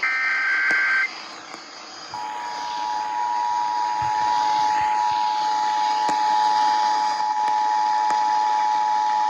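The last one-second burst of an Emergency Alert System SAME data header, a harsh two-tone screech. About a second later the EAS attention signal begins: the steady 853 and 960 Hz dual tone, held to the end. Together they announce a tornado warning.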